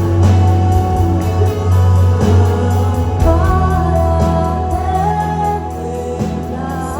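Live gospel worship music from a band: a heavy steady bass under held keyboard chords, with a higher melody line coming in about three seconds in.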